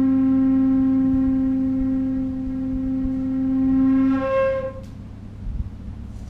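A long end-blown wind tube holds one steady low note, jumps up an octave just after four seconds, then stops. A low hum carries on underneath.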